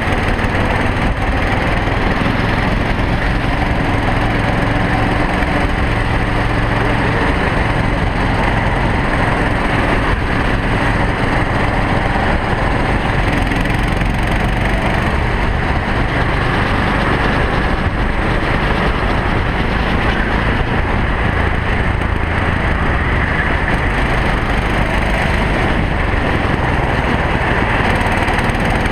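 Racing kart's engine running under load at speed, heard from a camera mounted on the kart, as a loud, steady, dense noise with little change.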